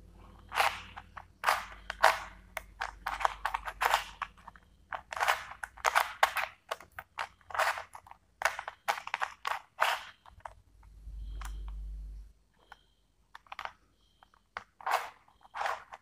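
Plastic Rubik's cube being turned layer after layer, a quick irregular run of clicks and clacks as the faces snap round while a solving algorithm is repeated. The clicks break off about ten seconds in, a short low rumble follows, and a few more turns click near the end.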